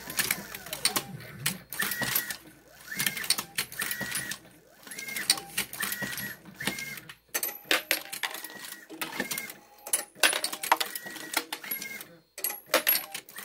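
Motor-driven Dillon 1050 progressive reloading press cycling automatically: repeated mechanical clanks and clicks as it strokes and indexes the shell plate, with short steady high tones recurring about once a second.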